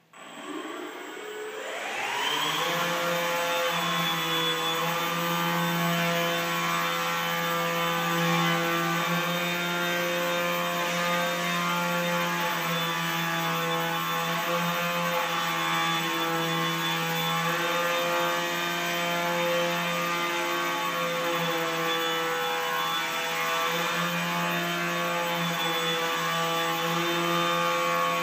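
Small drone in a spherical cage spinning up its propellers, the pitch rising over the first two seconds. It then hovers and flies with a steady buzzing whine that wavers slightly in pitch.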